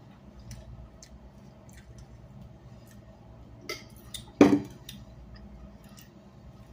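Small clicks and taps of eating and handling food at a table, over a faint steady hum. Two sharper, louder sounds come about three and a half and four and a half seconds in, the second the loudest.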